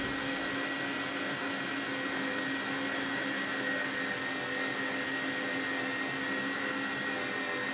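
Electric meat grinder running steadily while it minces tomatoes, a constant motor hum with a steady whine.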